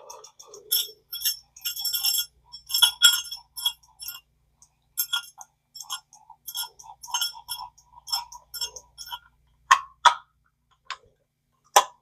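Small metal parts of a Zebco 404 spincast reel clicking and clinking in quick runs as the reel is worked by hand, with two sharper single clicks near the end.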